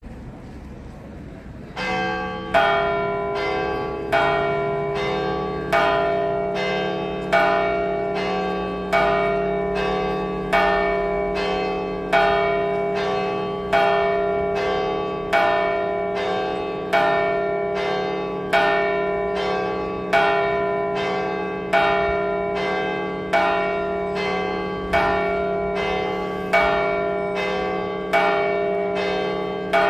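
Church bell tolling at an even pace, one stroke about every 0.8 s with every other stroke louder, its low hum ringing on between strokes; it starts about two seconds in. This is the automatic second call to Mass, rung by a computer bell controller.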